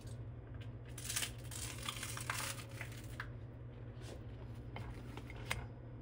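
A bite into a toasted English muffin and egg sandwich, crunching and chewing close to the microphone for about two seconds, then a few light clicks, over a steady low hum.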